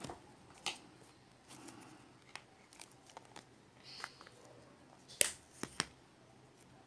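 Small plastic packets of slime add-ins being handled and opened: scattered clicks and crinkles, with the sharpest clicks a little after five seconds.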